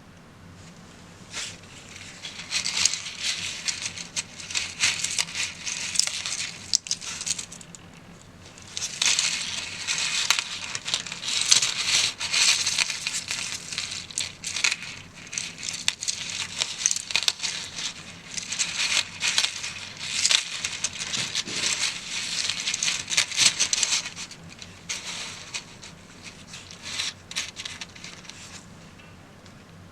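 Articulated 3D-printed plastic cuttlefish fidget toy being flexed and wiggled, its jointed segments clicking and rattling against each other in dense bouts of a few seconds with short pauses between.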